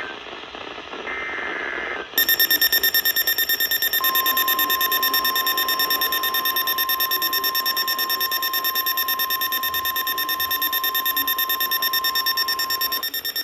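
Emergency alert tones before a severe thunderstorm warning: a short burst of buzzing digital header data, then a shrill alarm beeping very rapidly from about two seconds in. A steady warning alarm tone sounds under the beeping from about four seconds in until near the end.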